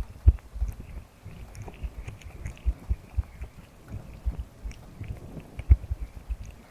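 Close-up ASMR slime and ear-massage sounds on the microphone: sticky, wet squishing with soft, irregular low thumps and small clicks.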